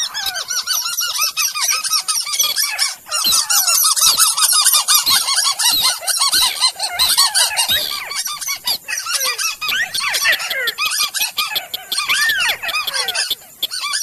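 Bird-lure recording of white-browed crake and slaty-breasted rail calls, layered into a loud, dense, almost unbroken chorus of short arched chattering notes mixed with sharp clicks.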